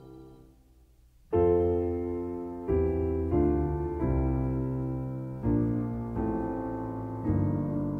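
Background piano music: after a brief near-quiet pause, slow chords are struck about every second, each ringing out and fading before the next.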